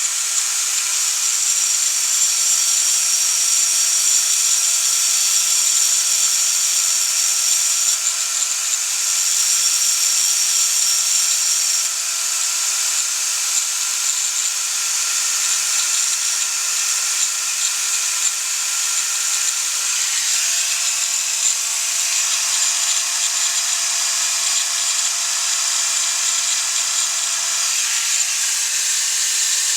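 A power tool running continuously with a steady high whir and hiss, its tone shifting slightly a few times.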